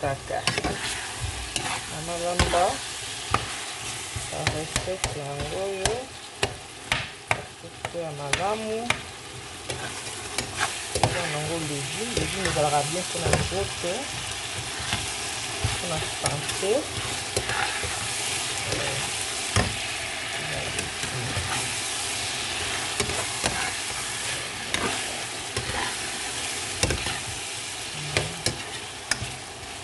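Okra, tomato and onion sizzling in a cooking pot while a spoon stirs them, with frequent clicks and scrapes of the spoon against the pot. The sizzle fills in and becomes steadier from about ten seconds in.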